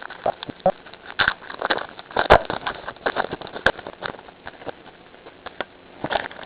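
Baseball trading cards and packs being handled, with irregular crinkling and clicking. There are louder snaps about a second in, around two seconds in and near the end.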